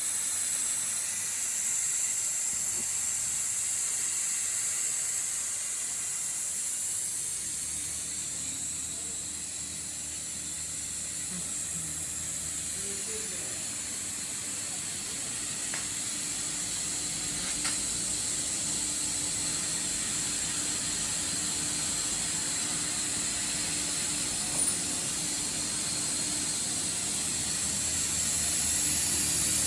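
300 W CO2 laser cutting machine running while it cuts thick acrylic: a steady hiss of blowing air with a faint low hum under it. A single short click sounds about 25 seconds in.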